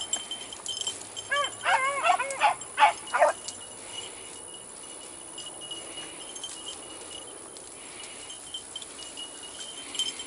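Beagles baying on a rabbit's trail: a quick run of short, arching bays, some overlapping, from about a second and a half to three seconds in, then the baying stops.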